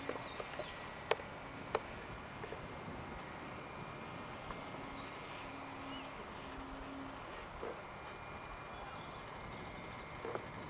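Steady outdoor background hiss with a few sharp clicks in the first two seconds and faint short whistling tones that come and go.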